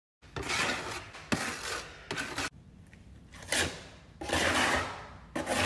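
Metal scraper spreading and scraping cement-based feather finish patching compound across a subfloor: about five rough scraping strokes, with a sharp click a little over a second in.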